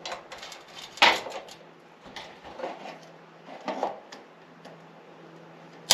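Tools and metal parts being handled in a shop: a handful of separate clinks and knocks, the sharpest about a second in.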